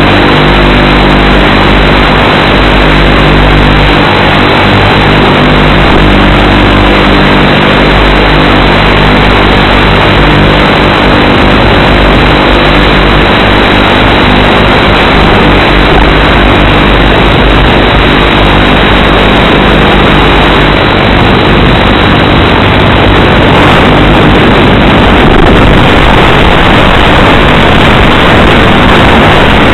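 Loud, steady rushing noise with a low hum from the onboard audio of an FPV model airplane in flight: propeller, motor and wind noise carried over the analog video link. The low hum fades about ten seconds in.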